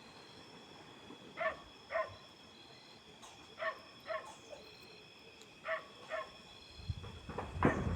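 A dog barking, two barks at a time about half a second apart, every couple of seconds. Near the end, loud sharp cracks with a rumble begin: rifle shots from a guerrilla harassment attack.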